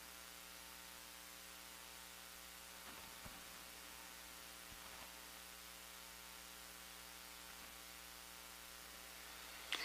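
Near silence: a steady electrical mains hum with hiss, broken only by a few faint ticks.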